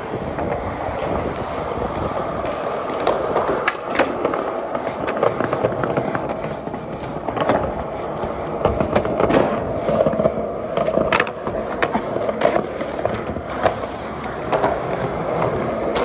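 Skateboard wheels rolling on concrete with a steady rumble, broken again and again by sharp clacks of the board and trucks hitting concrete ledges and steps.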